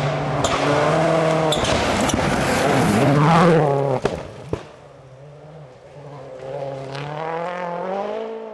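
2.0-litre turbocharged four-cylinder World Rally Car engine at high revs as the car slides through a gravel corner, with two sharp cracks about four seconds in. The engine drops away briefly, then climbs in pitch again through the last few seconds.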